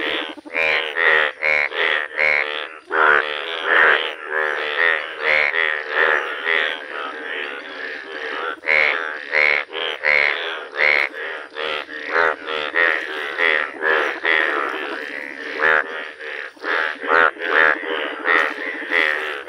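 Breeding chorus of male Indian bullfrogs: many overlapping croaks, several a second, without a break. These are the mating calls of males in yellow breeding colour, calling while they clasp females.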